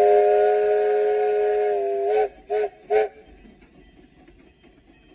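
Steam locomotive whistle sounding a chord of several notes, heard loud from inside the cab: a long blast ending about two seconds in, then two short toots.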